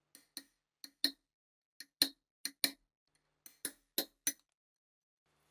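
Sharp metallic clicks and taps, about a dozen at irregular spacing, from steel gun parts being handled and fitted together. They stop about four seconds in.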